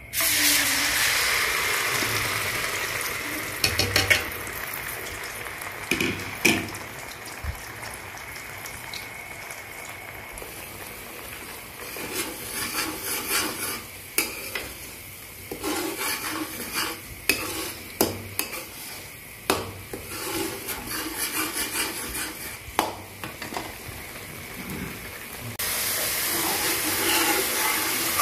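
Onion paste hitting hot oil in a nonstick pan, sizzling loudly at once, then frying while a metal spoon stirs and scrapes it, with many small clicks against the pan. The sizzle grows louder again near the end.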